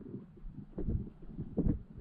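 Muffled low thumps and rumble of water moving around a submerged camera, two thumps about a second apart.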